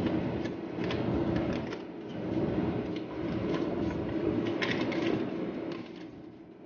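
Foil butter wrappers crinkling and a spatula scraping soft butter off them into a stainless steel mixing bowl, with scattered light clicks and rustles, over a steady low machine hum.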